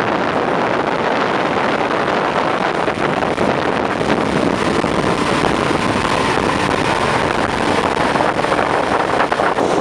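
Dive boat under way: a steady rush of wind on the microphone and water along the hull, with the boat's motor running beneath.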